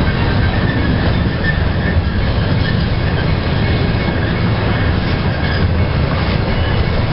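Freight train rolling past, a loud steady rumble of wheels on rails.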